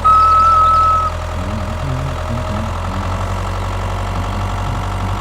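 A single whistled note held for about a second, then an engine idling steadily.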